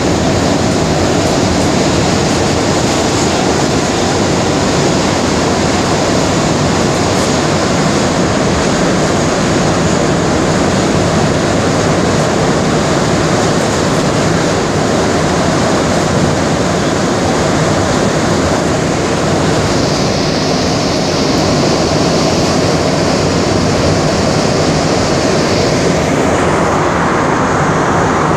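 Montreal metro train with rubber-tyred cars running through the tunnel, heard from inside the car as a loud, steady rumble and rush. A higher hiss comes in about two-thirds of the way through, and the sound shifts again near the end.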